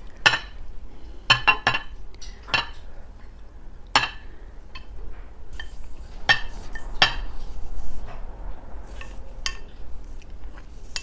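Kitchen utensils knocking and clinking against dishes: a string of separate sharp clinks, some in quick pairs, a second or two apart.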